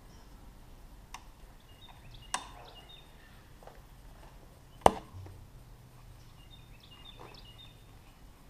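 A few sharp clicks and knocks of parts and hand tools being handled while working on a motorcycle, three in all, the loudest about five seconds in. Faint high chirps come twice in the background.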